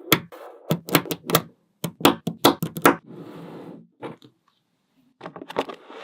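Small magnetic balls clicking sharply together as they are snapped into place, in quick runs of clicks, with a softer rattling rustle of balls between the runs. There is a short pause about four and a half seconds in before the clicking resumes.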